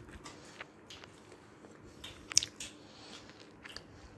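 Quiet eating sounds: chewing and fingers squishing rice on a metal plate, with scattered small clicks and one sharp click about two and a half seconds in.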